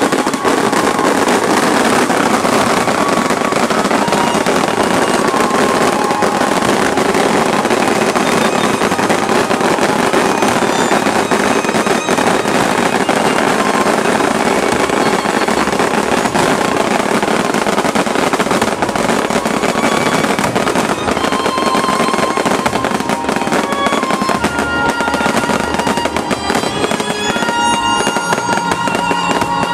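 Aerial fireworks display: many shells and low-level fireworks bursting at once in continuous crackling and popping without a break. Music plays along underneath, its notes coming through more clearly from about twenty seconds in.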